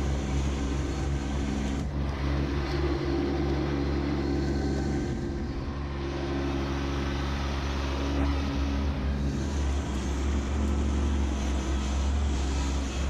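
Kubota B2601 compact tractor's three-cylinder diesel engine running steadily as the tractor drives up and lifts logs in its root rake grapple.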